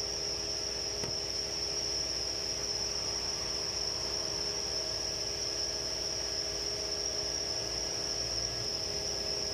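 Steady background noise: a constant high-pitched whine over a low hum and an even hiss, with no distinct knocks or clicks.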